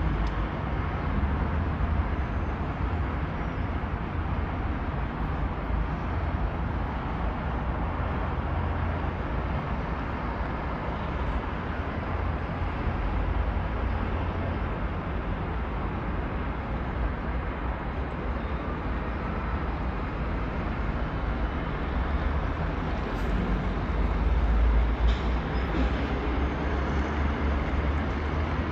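Steady road-traffic noise from a busy multi-lane interchange: a low rumble of many engines and tyres. It swells briefly near the end.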